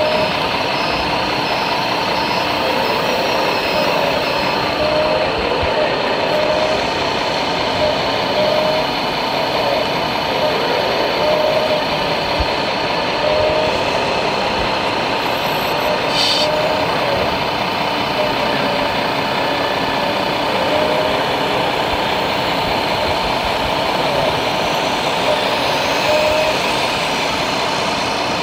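Radio-controlled model construction machines at work: short whining spurts from the electric motors and hydraulic pumps of the model excavators, recurring every second or two, over a steady din of model truck engine sound and crowd murmur.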